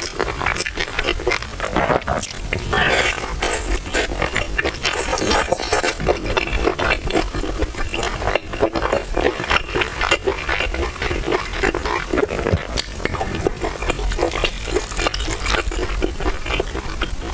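Close-miked chewing of a mouthful of sticky glutinous rice and chicken leg: a steady run of irregular wet mouth clicks and smacks.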